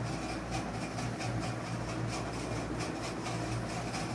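Steady low hum and hiss of room noise, with faint rubbing from the phone being handled.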